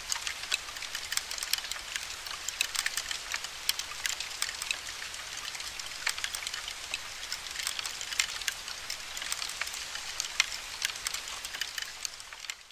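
Woodworm larvae gnawing inside a piece of wood, picked up close by a microphone and amplified: a dense, irregular crackle of tiny high clicks over a soft hiss.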